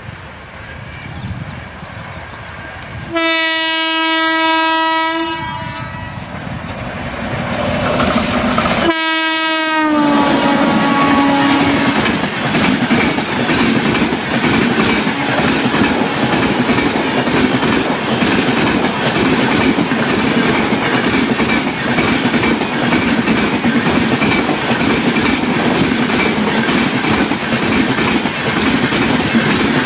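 Indian Railways WAP-7 electric locomotive sounding its horn twice, the second blast sliding down in pitch as it passes at speed through the station without stopping. The express coaches follow, rushing by with rapid, regular wheel clicks over the rail joints.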